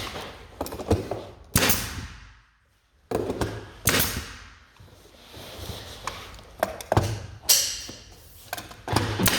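Irregular sharp knocks and taps on wood, such as fitting skirting board or parquet, a second or two apart, with a brief silent break about two and a half seconds in.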